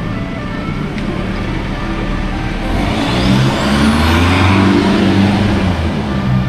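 Pickup truck pulling away and driving past. Its engine rises and its tyres hiss on the wet road, loudest about four to five seconds in, then it eases off as it moves away.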